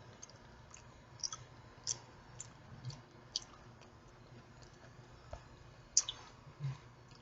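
Eating sounds: quiet chewing with scattered short clicks, the loudest about six seconds in.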